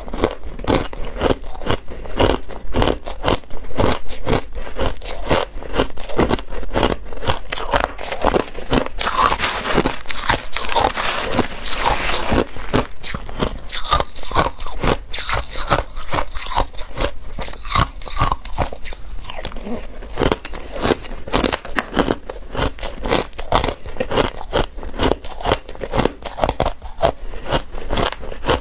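Crushed ice being bitten and chewed close to a clip-on microphone: a dense, unbroken run of sharp crunches.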